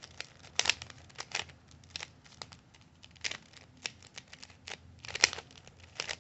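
Plastic layers of a new Rubik's cube being turned by hand, giving irregular clicks and clacks; the cube turns very tight.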